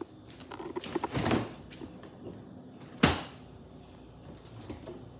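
Rustling and handling noise from a phone carried against the body while someone moves about, with a single sharp knock about three seconds in.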